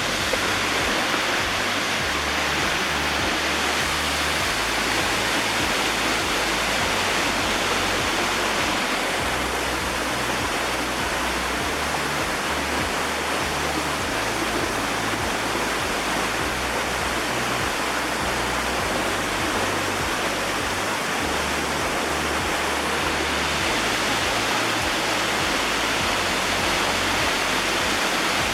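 Waterfall: a steady rush of falling water pouring into its plunge pool, close by and even throughout.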